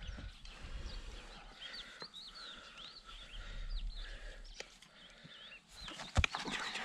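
Hoof knife paring a horse's hoof: a few scraping strokes and a sharp knock about six seconds in. Repeated short, high chirping animal calls run underneath.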